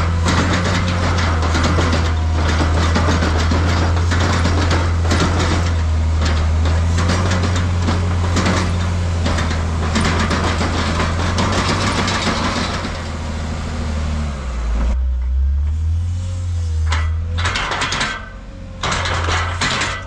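A farm tractor's diesel engine running steadily with a lot of clatter. The noise falls to a lower, quieter run about three-quarters of the way through.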